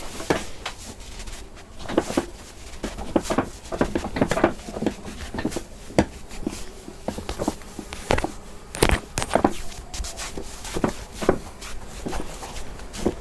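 Hands working on skin and clothing during a head and upper-body massage: irregular slaps, pats and rubs, about one or two a second, with the loudest smack about nine seconds in.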